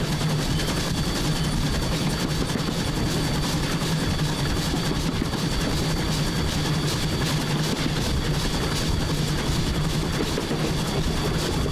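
1910 Swedish-built E2 steam locomotive running steadily along the line: a constant low rumble of the engine and its wheels on the rails, with faint steady high tones above it.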